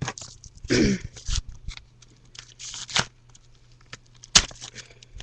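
Packaging being unwrapped by hand: irregular rustling, crinkling and tearing of wrapping. There is a sharp click or knock about four seconds in.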